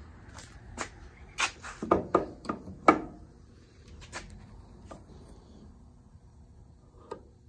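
Irregular metal knocks and clunks of a starter solenoid being handled and clamped into a bench vise. The loudest knocks come in a quick cluster between about one and three seconds in, followed by a few faint clicks.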